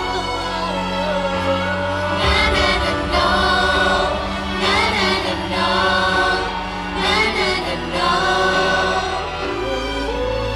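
Idol-pop song played live over a stage sound system: sustained, choir-like layered vocal harmonies over a backing track with a steady bass.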